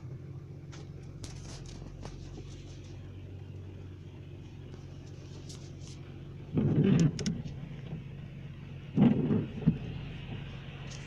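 Steady low drone of a car on the move, engine and road noise. Two short, much louder bursts break in, about six and a half and nine seconds in.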